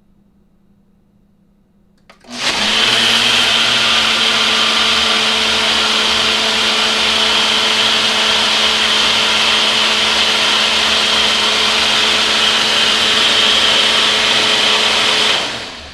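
Countertop blender: a click about two seconds in, then the motor comes up to speed and runs steadily with a high whine for about thirteen seconds, cutting off and spinning down near the end.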